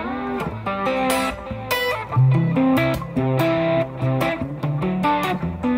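Ibanez RG5170 electric guitar playing a plucky, melodic line of separate picked notes, with a note bent down and back up near the start.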